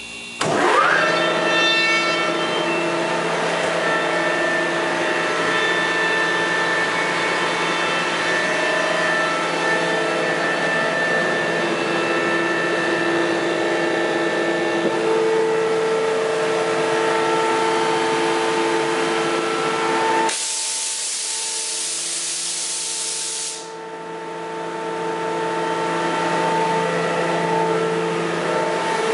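Sullair ST11 rotary screw air compressor starting from its control panel: about half a second in, its motor starts with a quick rising whine, and the unit then runs steadily with a hum and several steady tones. About twenty seconds in, a loud hiss of air lasts about three seconds, and the steady running carries on after it.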